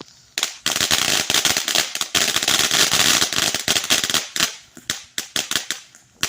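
Fireworks crackling: a dense run of rapid sharp pops begins about half a second in and lasts roughly four seconds, then thins out into scattered pops.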